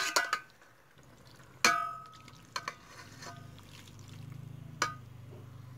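Metal spoon stirring sliced pork in a metal pot, knocking against the pot's side: a ringing clang about a second and a half in, and a few lighter knocks after it. A faint low hum sits underneath in the second half.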